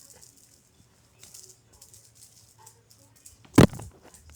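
Faint rustling and light clicks, then one loud thump about three and a half seconds in.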